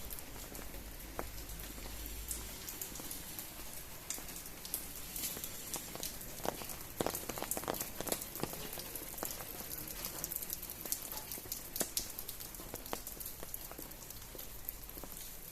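Rain falling steadily, with many individual drops landing close by as irregular sharp ticks over an even hiss.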